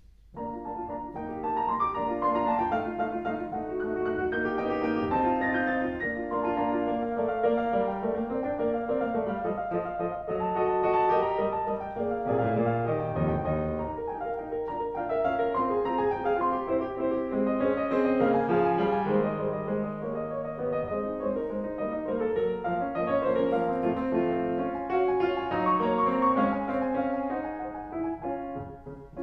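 Piano music playing a melody over chords, starting just after the beginning and dropping away near the end.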